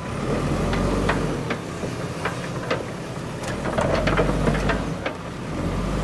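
JCB 3DX backhoe loader's diesel engine running, its low hum swelling and easing several times. Irregular sharp clacks and knocks run through it.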